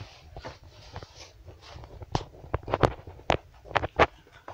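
Irregular sharp knocks and clicks, about half a dozen in the second half, over faint rustling, like something being handled or moved about.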